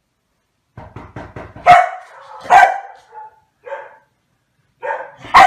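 Komondor barking several times, preceded about a second in by a quick run of sharp taps.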